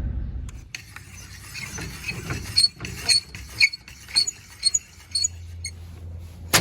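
Metal trailer-hitch hardware clinking while a truck is hooked up to a trailer: a run of sharp, ringing clinks about two a second, then a single loud click near the end.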